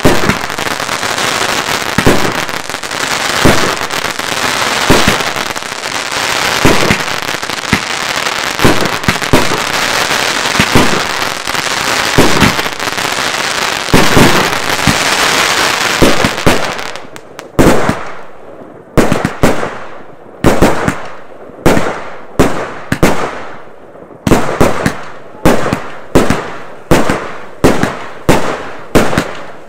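Firework battery (cake) firing shot after shot. For the first half a dense crackle of bursting stars runs under a bang about once a second. Then the crackle thins out and clean, separate shots go off at about two a second.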